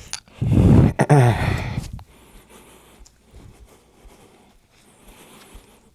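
A man's heavy breath out and a short strained groan, in the first two seconds. Then only faint handling noises.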